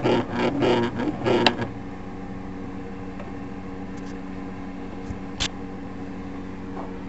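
Old electric sewing machine's gear train running in regular creaking clunks, about three a second, then stopping with a sharp click about a second and a half in; a steady low hum and a single click follow. The mechanism is binding on a broken gear whose teeth don't line up.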